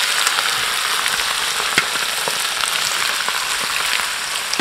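Raw chicken livers, gizzards and hearts sizzling steadily in hot oil in a frying pan, just added to sear, with scattered small crackles.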